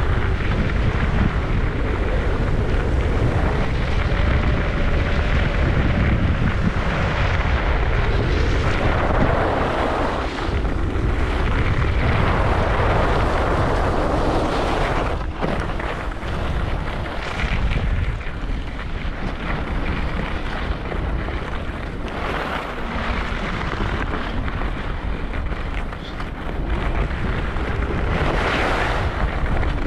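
Wind buffeting a skier's camera microphone during a fast downhill run, with the hiss of skis on snow that swells and fades every few seconds.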